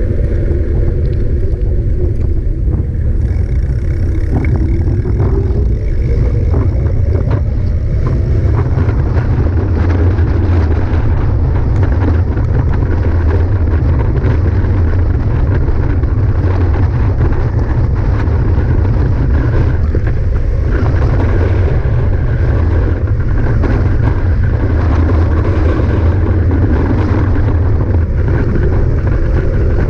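Steady, loud low rumble of wind buffeting a camera microphone during a mountain bike ride, with scattered clicks and rattles from the bike on rough ground.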